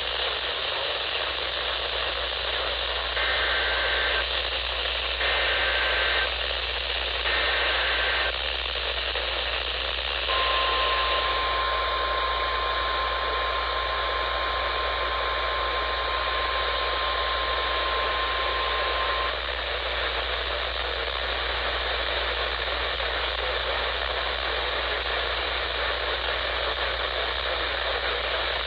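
Weather-radio emergency alert received through heavy static hiss: three short SAME data bursts, each about a second long and a second apart, then the NOAA Weather Radio's steady 1050 Hz warning alarm tone held for about nine seconds before it cuts off.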